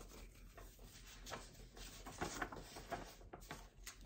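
Faint rustling and crinkling of letter paper and an envelope being handled, as a folded letter is drawn out and opened up, with a couple of sharp crinkles near the end.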